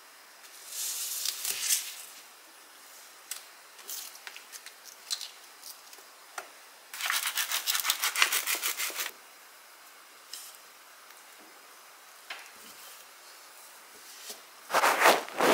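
Kitchen food-preparation sounds: light rustles and small clicks of hands handling apple slices, then flour sprinkled onto the work surface in a rapid patter lasting about two seconds around the middle. Near the end comes a louder, fuller sound as a wooden rolling pin presses onto rolled-up puff pastry dough.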